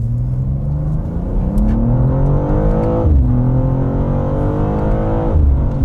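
BMW M2 G87's twin-turbo inline-six under full acceleration, heard from inside the cabin: the revs climb steadily, drop sharply at an upshift of the eight-speed torque-converter automatic about three seconds in, then climb again through the next gear before another upshift near the end.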